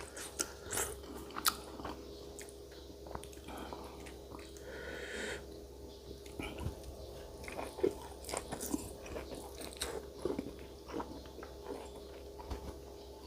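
Close-miked chewing and biting while eating a spicy beef-foot salad, with irregular wet mouth clicks and crunches. There is a brief hiss about five seconds in, over a steady low hum.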